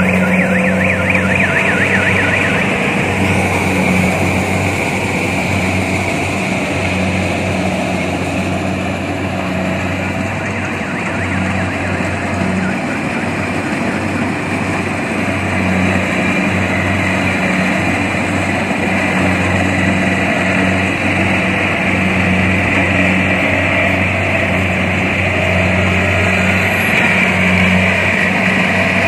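Kubota rice combine harvester running steadily while harvesting: a constant engine drone with a high whine from the cutting and threshing machinery over it.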